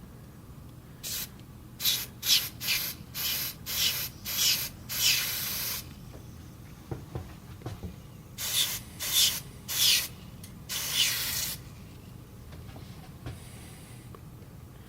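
Canned smoke-detector test aerosol hissing out in two volleys of short spray bursts, each volley ending in a longer burst, sprayed at a smoke detector to trip it into alarm.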